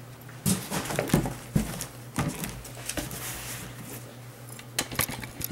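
Handling sounds of an unboxing: a series of irregular taps, knocks and rustles as a sneaker box and its contents are handled, over a steady low hum.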